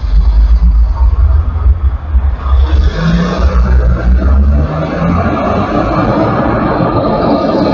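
Motor traffic passing close by on a multi-lane highway: vans, a pickup and a box truck driving past with engine and tyre noise. A deep low rumble dominates the first half; a steadier tyre hiss takes over from about five seconds in.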